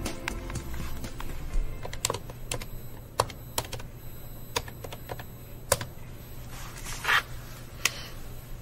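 Buttons on a corded desk telephone's keypad pressed one by one while dialling, a dozen or so sharp, irregularly spaced clicks with no dial tones, plus a brief rustle near the end.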